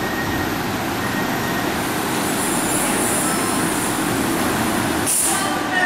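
Steady noise of a moving vehicle, with a brief hiss about five seconds in.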